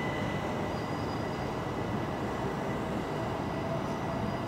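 Southeastern Class 465 Networker electric multiple unit at the platform: a steady rumble with a high electrical whine, and a still higher tone that sounds briefly about a second in and again near the end.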